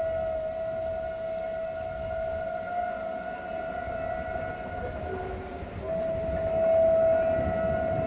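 Air horn of a CFR class 060-DA (LDE2100) diesel-electric locomotive sounding one long, steady blast. It weakens briefly about five seconds in, then comes back louder.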